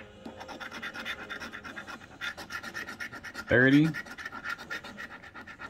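Scratch-off lottery ticket being scratched: quick repeated scraping strokes across the card's coating. A short vocal sound breaks in about three and a half seconds in.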